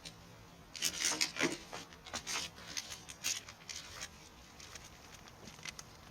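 A quick flurry of light clicks and rustles of objects being handled, heaviest from about one to three and a half seconds in, then scattered small clicks.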